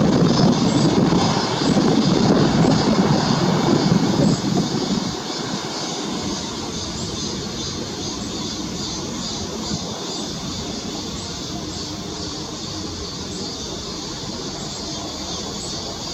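Jet engines of a departing Airbus A350-900, its Rolls-Royce Trent XWB turbofans running at takeoff power as a deep, noisy rumble. The rumble falls away about five seconds in, leaving a fainter steady roar and hiss.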